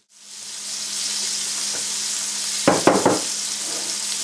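Flour-dredged capelin frying in fat pork, butter and oil in a cast iron pan: a steady high sizzle that fades in after a brief silence at the start. A few louder pops come about three seconds in.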